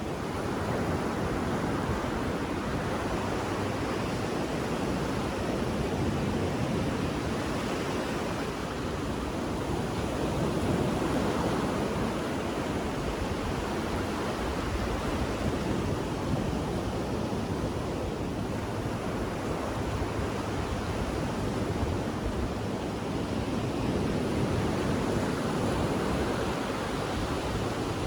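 Ocean waves rolling in: a steady rush of surf that swells and eases every few seconds.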